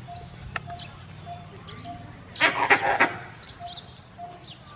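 Forest ambience of birds chirping and a short note repeating about every two-thirds of a second. About halfway through comes a brief burst of several loud animal calls.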